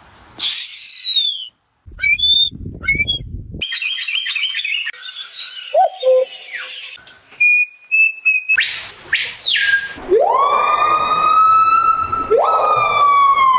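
A string of different animal calls in quick succession: whistled and chirping calls, a quick run of chirps, then a long held call with a strong steady pitch over the last few seconds.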